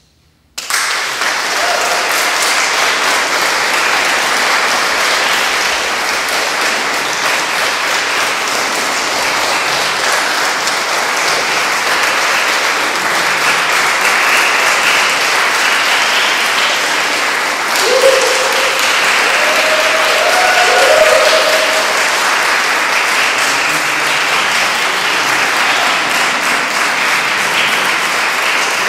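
Audience applauding, breaking out suddenly about half a second in and continuing steadily, with a few short calls from the crowd about two-thirds of the way through.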